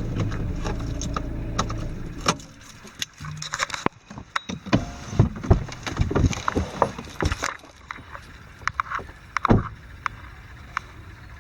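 Car engine idling, then switched off about two seconds in. A scatter of clicks and knocks follows as the car is left.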